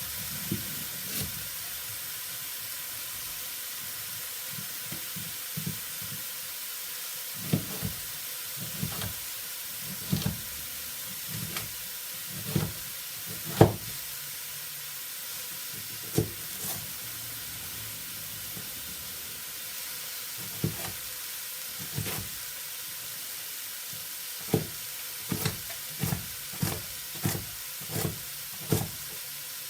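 Steady sizzling of food cooking in a pan, with irregular sharp knocks and taps of kitchen work, coming one or two a second near the end.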